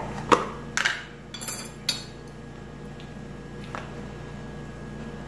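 Metal spoon knocking and scraping against a plastic butter tub and a glass mixing bowl as butter is scooped out: several short clinks in the first two seconds, then a fainter one near the four-second mark.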